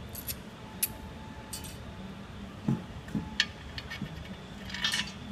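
Metal tank bolts and washers clinking against the porcelain toilet tank as they are fitted through its holes: a few separate clicks and a short rattle near the end.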